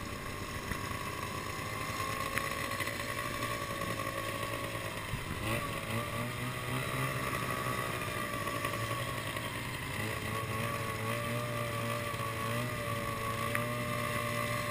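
Snowmobile engine running steadily on the move, heard from the machine itself, its pitch wavering and shifting slightly with the throttle about five and ten seconds in.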